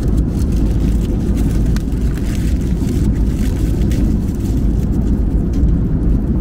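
Steady low rumble of an airliner's engines and airflow heard inside the passenger cabin, with a few faint clicks.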